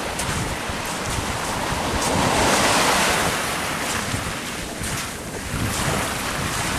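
Ocean surf breaking and washing up the beach under strong wind, with gusts buffeting the microphone. The wash of the surf swells loudest about two to three seconds in.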